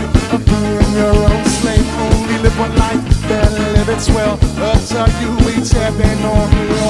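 Ska band playing live, with horns, drum kit and congas over a steady beat.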